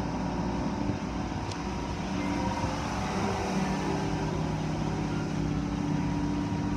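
Automatic car wash tunnel running: a steady machine hum with a few held tones, from the spinning wash brushes and water spray, heard through the tunnel's glass viewing window.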